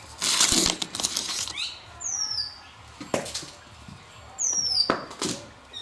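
A short clatter of stainless-steel bowl and plate being handled and set down, followed by a few knocks. A bird calls twice with a sharp, falling whistle.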